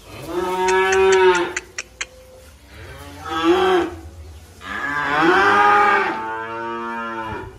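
Cattle mooing three times. The first call is long, the second short, and the third the longest, with a few sharp clicks after the first.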